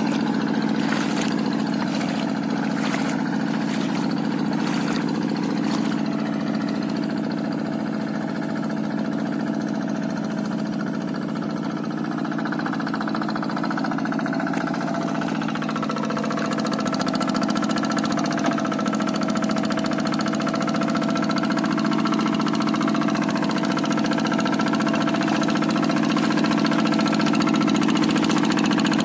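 Single-cylinder diesel engine of a Quick G1000 hand tractor running steadily while plowing a wet rice paddy, with a few light knocks in the first seconds.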